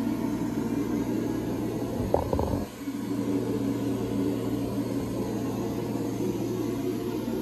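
A steady low machine hum, like a fan or air unit running in the room, with a short cluster of knocks about two seconds in.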